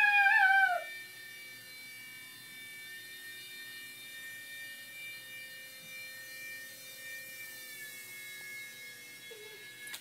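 Small remote-control flying saucer toy hovering, its tiny rotors giving a faint steady whine whose pitch sags slightly near the end. A puppy's high, whining yips sound in the first second.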